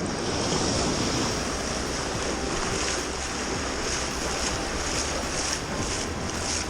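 Wind buffeting the microphone over the wash of sea waves: a steady rushing noise with a low rumble.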